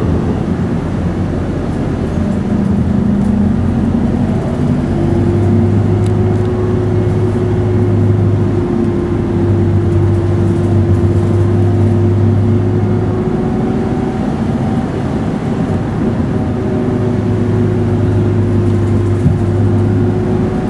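Hino Blue Ribbon city bus under way, heard from inside the passenger cabin: a steady diesel engine drone with road noise. The drone eases off for a few seconds past the middle and then returns, and a faint higher whine rises slowly.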